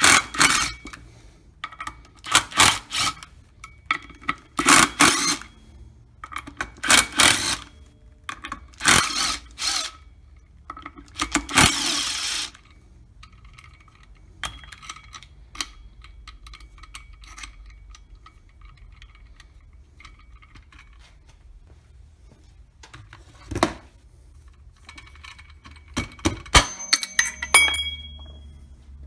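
Bosch 12-volt cordless impact driver hammering in six short bursts about two seconds apart, backing out the 7/16 bolts that hold the spring-loaded cover onto a Polaris snowmobile primary clutch. Afterwards there are light metallic clicks, one knock, and a cluster of clinks with a brief ring near the end.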